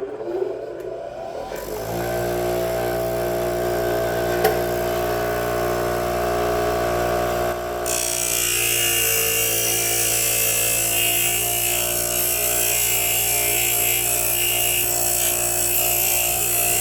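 Electric grinder spinning up to speed with a rising whine, then running with a steady hum; about eight seconds in a hissing grind joins it as the plastic Molex connector housing is pushed into the wheel to cut off its surplus pin positions.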